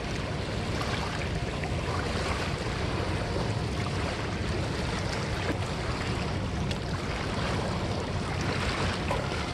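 Steady wash of choppy river water against a gravel bank, with wind rumbling on the microphone.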